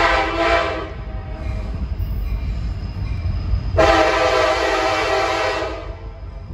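Diesel freight locomotive's air horn: a short blast, then a longer blast of about two seconds some three seconds later, over the low rumble of the approaching train.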